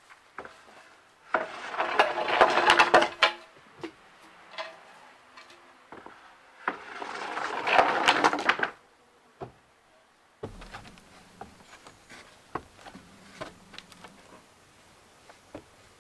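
Two rough scraping bursts on wood, each about two seconds long and full of rapid clicks, with scattered single knocks between them and quieter handling knocks after.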